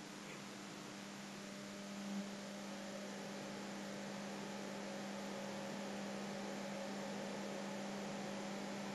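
Low, steady electrical hum over a background hiss, with one faint click about two seconds in.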